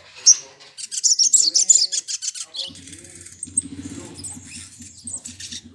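Male olive-backed sunbird (sogon) singing: a run of rapid, high twittering chirps, loudest in the first two seconds, then going on more softly. A low steady hum comes in about halfway through.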